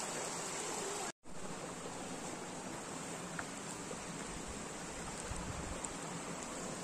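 Steady rush of running water, cut off for a moment about a second in.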